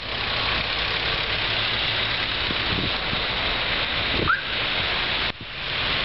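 Car traffic running slowly in a snowstorm, with wind rushing against the microphone. A short rising squeak sounds about four seconds in.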